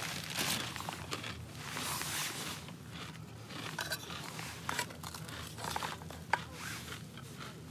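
A plastic bag of tortillas crinkling as it is handled, then light scrapes and a few sharp clicks as food is worked and lifted in a small camping pan.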